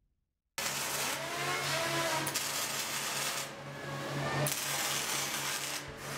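Metal-fabrication shop noise from power tools, grinding and welding, starting abruptly about half a second in. A fast, even low pulse runs under it.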